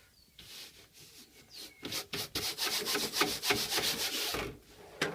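Quick, dense rubbing and scraping strokes as dried glue is rubbed off a surface, soft at first and much louder from about two seconds in, stopping about a second before the end. A sharp knock comes right at the end.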